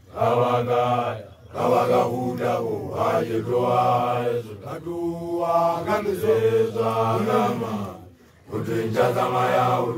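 Young Basotho male initiates (makoloane) chanting together in long sustained phrases, with short breaks about a second in and near the end.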